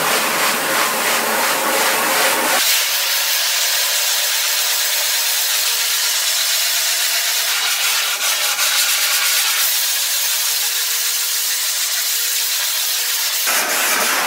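Pressure washer spraying a steady jet of water onto an emulsion-coated screen-printing screen, washing out the softened emulsion to develop the stencil. The sound is a steady, loud hiss.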